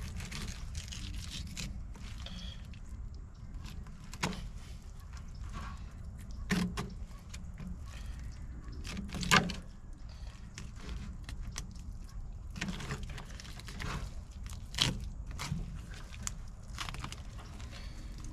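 Fish-filleting knife work: scattered knocks, clicks and scraping as a knife cuts through mullet and taps the cutting board, with the loudest knocks about nine seconds in and near fifteen seconds. A steady low hum runs underneath.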